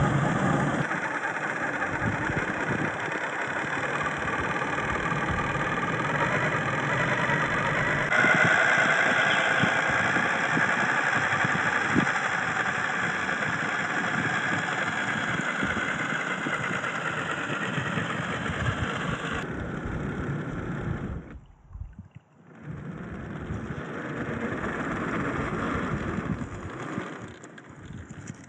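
A 1/10-scale Axial SCX10 III RC crawler driving through loose sand and gravel: its brushless motor and geared drivetrain whine steadily under throttle, mixed with the crunch of tires churning the gravel. The sound shifts abruptly a few times and dips briefly near the end.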